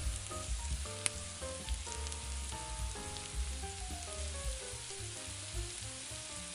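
Onions and roasted red peppers sizzling in olive oil in a stainless steel sauté pan as chopped garlic is added and stirred in with a metal spoon. Soft background music plays underneath.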